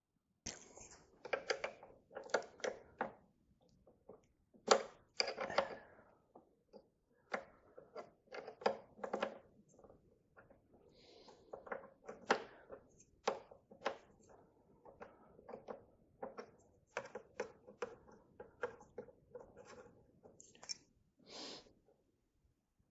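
Scattered metallic clicks and clinks of a hand tool working the car battery's ground (negative) terminal to disconnect it, some in quick clusters.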